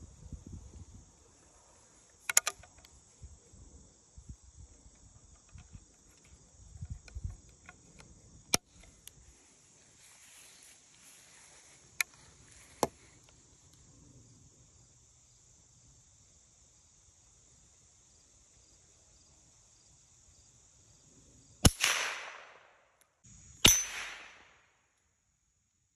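Steady trilling of crickets and other insects with a few light clicks from handling the rifle, then, near the end, two sharp shots about two seconds apart, the loudest sounds, each with a short fading tail: a Stevens 44 single-shot rifle in .22 Extra Long Maynard firing subsonic cast-lead loads.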